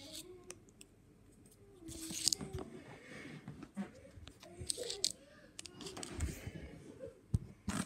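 A small crumpled wrapper packet crinkling in short bursts as it is handled and dropped on carpet, with a faint voice murmuring underneath.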